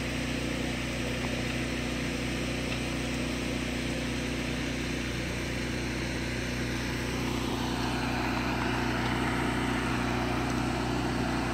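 A small engine running steadily at a constant speed, with a hiss that grows louder about eight seconds in.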